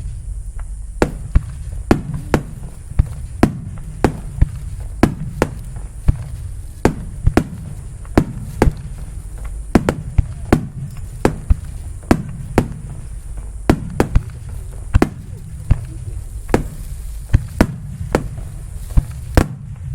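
Aerial firework shells bursting in rapid succession, about two sharp bangs a second, over a continuous low rumble of booms.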